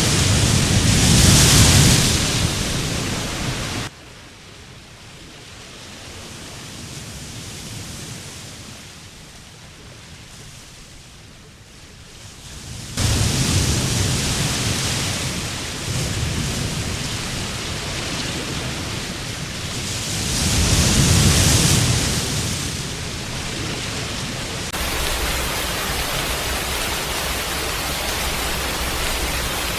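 Storm noise: a steady rushing roar of heavy rain and wind. It drops off abruptly about four seconds in and comes back loud about thirteen seconds in, with swells near the start and about twenty-one seconds in.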